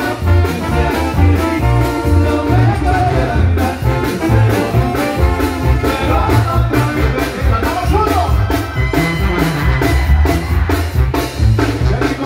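Mexican banda (brass band) playing live: a sousaphone bass line pumps under trumpets and other brass, with drums keeping a steady beat.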